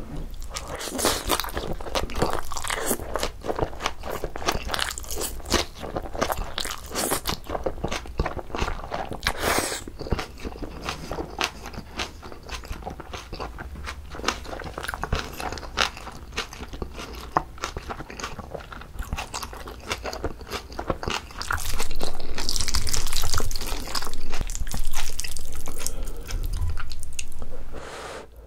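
Close-miked eating of Jjapagetti black-bean noodles and green onion kimchi: wet, irregular chewing and crunching with many small mouth clicks. Near the end there is a louder, steadier stretch of mouth noise.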